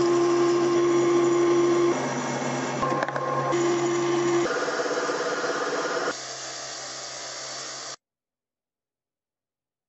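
Metal lathe running, spinning and cutting a small brass workpiece, first with a file held against it and then with an insert cutting tool, a steady tone riding over the machine noise at times. The sound changes abruptly several times and cuts off dead about eight seconds in.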